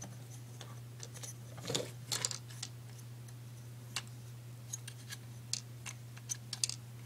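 Light plastic clicks and taps at irregular intervals from a Lego water-wheel hammer mechanism being turned by hand, over a steady low hum.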